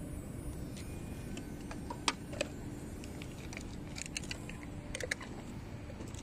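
A handful of sharp clicks from handling a plastic RC radio transmitter: two about two seconds in, then a quick cluster around four to five seconds in, over a steady low rumble.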